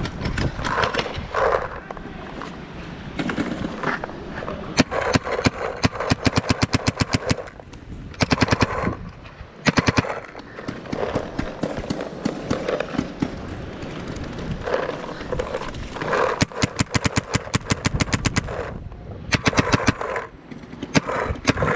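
Planet Eclipse Axe Pro paintball marker firing rapid strings of shots, about ten a second, in several bursts with short pauses between them.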